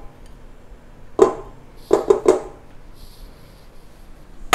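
Three short knocks as unsalted butter is put into a stand mixer's mixing bowl: one about a second in, then two close together just before the middle.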